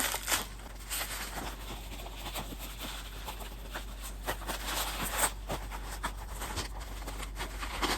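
Bubble-wrap packaging crinkling and rustling as it is handled and pulled open, with scattered small crackles and a few louder rustles midway.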